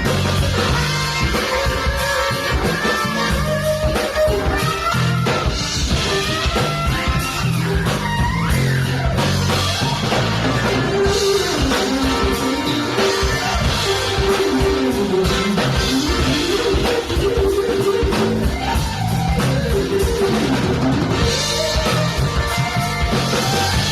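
Funk band playing live: electric guitars and drum kit over a steady groove, with long gliding melodic lines above.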